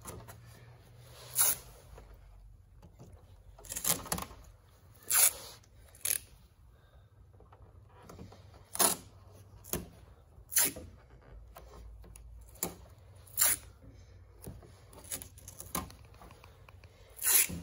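Yellow masking tape ripped off its roll in short pulls, about a dozen brief rips scattered irregularly, with faint handling noise between them.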